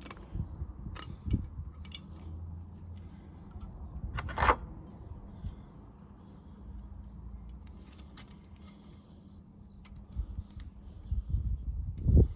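Small metal brake parts being handled and fitted: scattered light metallic clicks and clinks, with one louder, longer scrape about four and a half seconds in and a run of knocks near the end.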